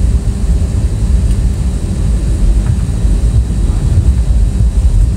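Loud, steady low rumble of an airliner cabin: engine and airflow noise heard from inside the plane, with a faint steady hum above it.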